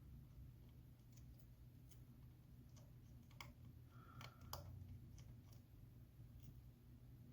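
Faint, scattered small clicks and taps of a precision screwdriver working tiny screws on an iPhone's internal metal bracket, the tip not seating because it is the wrong bit for the screw.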